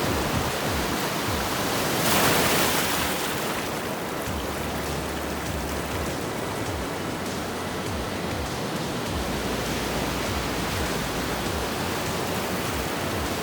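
Steady roar of ocean surf on a beach, with wind rumbling on the microphone; a wave swells louder about two seconds in.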